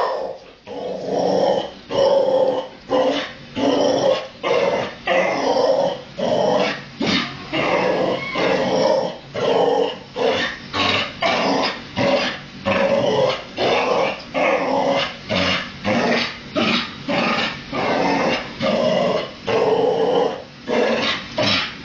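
A dog growling and barking at a dishwasher in short, loud, repeated bursts, about two a second, without pause.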